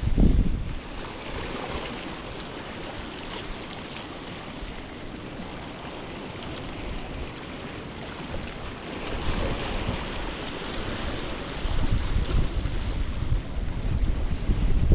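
Sea waves washing on the shore, swelling about two-thirds of the way through, with wind buffeting the microphone in a gust at the start and more heavily near the end.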